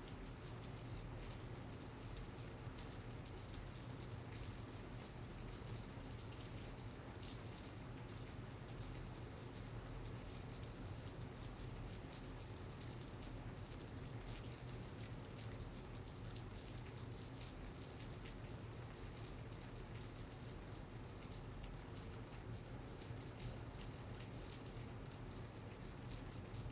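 Steady rain falling, with many scattered drop ticks over an even hiss and a low steady hum underneath.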